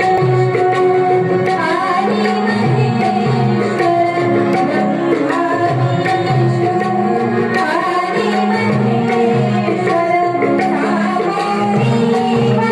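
Marathi devotional song played live: tabla keeping a steady rhythm under sustained harmonium and keyboard notes, with melodic lines over it.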